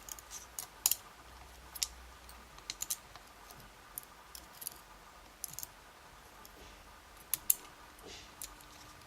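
Scattered small, sharp metallic clicks and taps of lock cylinder parts and tools being handled as the lock is taken apart, a few at a time with short pauses between.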